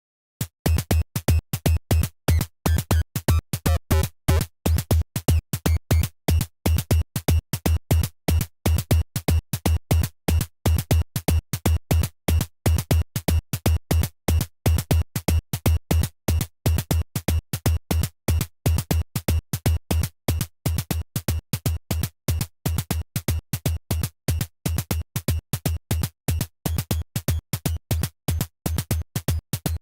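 Synthesized kick and snare drums from a Pure Data patch, playing a fast repeating Euclidean rhythm with several hits a second. The kick is bit-crushed, its bit depth and sample rate lowered, so it is gritty and heavy in the bass. It starts about half a second in.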